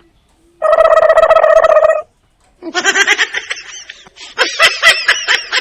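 Comic novelty sound effects: a buzzy, nasal pitched honk held for over a second, then after a short pause a fast, stuttering cackle of high pitched calls.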